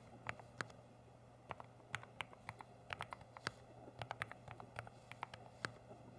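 Typing on a YOGO 75 PRO low-profile mechanical keyboard with Deep Sea Silent Mini switches: soft, irregular key clicks with a short pause about a second in.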